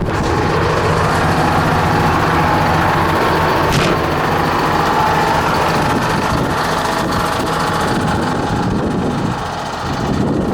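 Bucher CityCat 5000 street sweeper's Mercedes OM 904 LA diesel engine running steadily, easing off slightly near the end.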